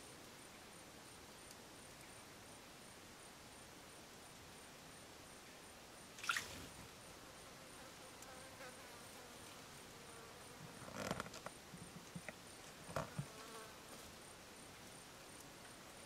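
Quiet forest background with a faint, high insect ticking repeating about twice a second. Three brief sharp sounds stand out, about six, eleven and thirteen seconds in, the middle one a short cluster of clicks.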